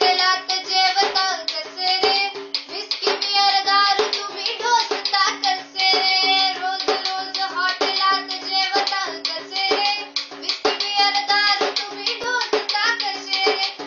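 A young girl singing a Marathi song in a sweet voice, accompanying herself with steady beats on a small hand drum.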